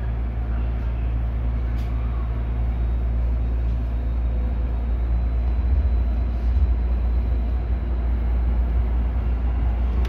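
Tokyo Metro 16000 series electric train pulling away from the station and accelerating into the tunnel, heard from the cab: a steady low rumble of the running train, with a faint high whine from about two seconds in.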